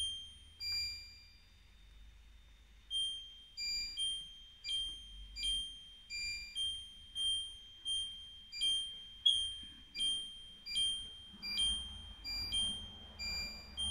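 Pressure King Pro multicooker's control panel beeping at each press as the cooking time is stepped up a minute at a time: about twenty short, identical high beeps, two near the start, then after a pause a steady run of one to two a second.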